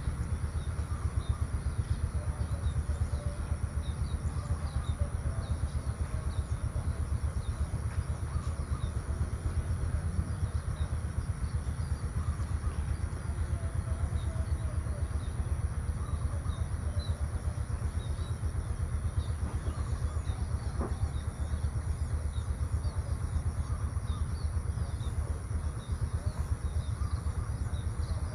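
Rural morning ambience: small birds chirping in short scattered calls over a steady high insect drone, with a constant low rumble underneath.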